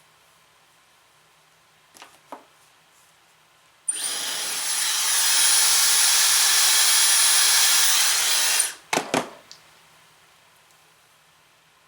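Dyson hair dryer switched on and running for about five seconds, a steady rush of air with a thin high whine over it, then cut off suddenly. A few small clicks and handling knocks come shortly before it starts and just after it stops.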